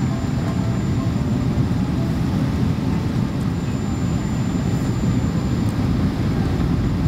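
Steady low rumble of engines and rushing air heard inside the cabin of a Boeing 777-200ER airliner during its descent on approach.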